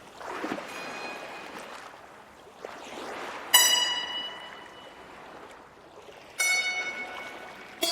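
A soft wash like running water, with two ringing instrument notes, one about halfway through and one near the end, each struck sharply and dying away slowly.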